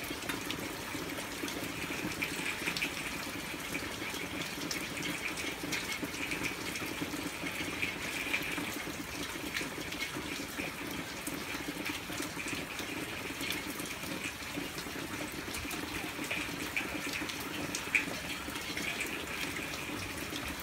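Hard rain falling steadily, with many small drop impacts and one sharper tap about three seconds before the end.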